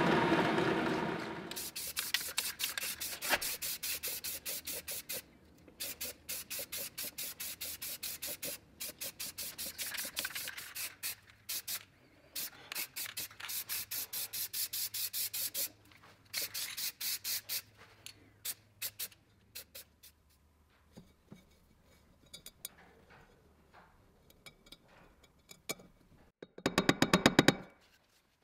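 Rapid back-and-forth rubbing strokes by hand, in runs with short pauses, then a few scattered light clicks and a short, louder run of strokes near the end.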